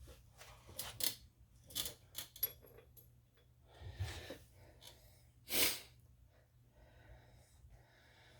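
Scattered metal clicks and clinks of hand tools and brake parts being handled, with a dull knock about four seconds in and a short scraping burst about five and a half seconds in.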